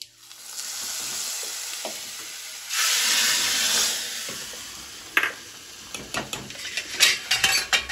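Hot tadka (oil with mustard seeds, curry leaves and green chillies) sizzling as it is tipped from a small iron tempering ladle into a steel pot of kadhi; the sizzle swells about three seconds in, then fades. It gives way to a spoon clinking and scraping against the steel pot as the kadhi is stirred.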